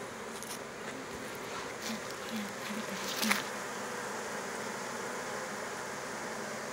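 Honeybee swarm buzzing steadily as it is hived, the bees walking into the hive box behind their queen. A few brief rustles and one sharper click come in the first half.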